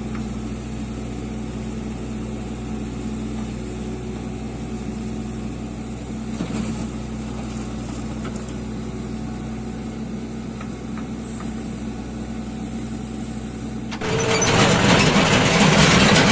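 Diesel engine of a JCB 3DX backhoe loader running steadily while it digs and dumps soil into a tractor trolley. About fourteen seconds in, the engine sound turns louder and rougher.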